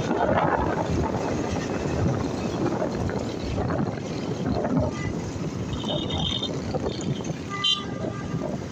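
Wind rushing over a helmet-mounted microphone with road noise from a moving motorbike in light traffic. A couple of short high beeps come near the end.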